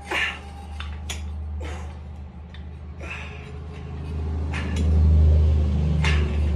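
A steady low rumble that swells to its loudest about five seconds in, with several short knocks spread through it.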